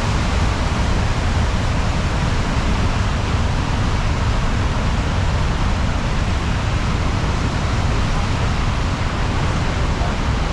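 The Rhine Falls, a wide waterfall, rushing steadily: an unbroken wash of falling water with a deep rumble underneath.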